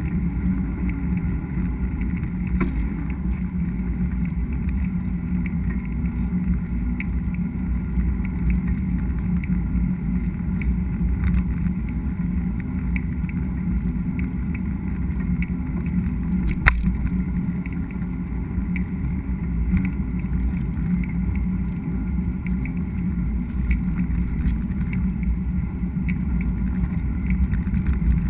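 Mountain bike riding noise picked up by a GoPro on the moving bike: a steady low rumble of tyres on the trail and wind on the microphone, with light rattles and one sharp knock about two-thirds of the way through.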